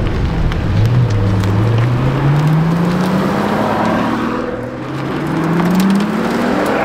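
Car engine accelerating hard. Its pitch climbs steadily, drops at a gear change about four seconds in, then climbs again in the next gear.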